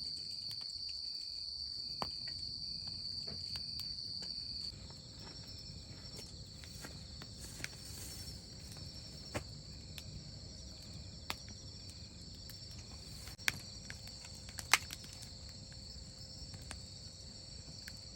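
Insects, crickets by the sound of it, chirping in a steady high-pitched chorus, with a few scattered sharp ticks.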